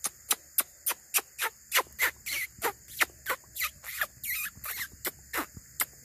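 Swiftlets calling overhead: a quick run of sharp, high chirps, about three a second, many sweeping down in pitch, over a faint steady high hiss.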